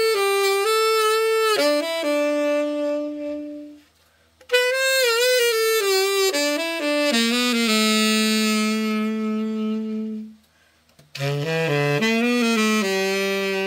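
Selmer Mark VII tenor saxophone played solo in three short phrases, each moving down to a long held low note, with brief pauses between them. This is the play test after a full overhaul.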